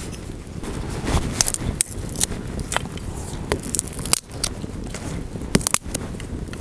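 A small fire of dried dung cakes and twigs crackling as it catches, with irregular sharp snaps over a steady low background rumble.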